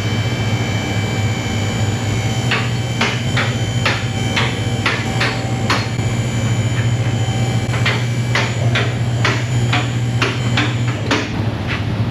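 A steady motor hum with a run of sharp metallic clicks, about two a second, starting a couple of seconds in. The hum and the clicks both stop near the end.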